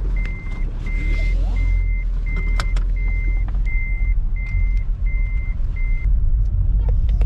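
A car's in-cabin warning beeper sounds nine times at an even pace, about three beeps every two seconds, each beep the same high steady tone, and stops about six seconds in. Under it runs the steady low rumble of the car's engine and road noise inside the cabin, with a few clicks.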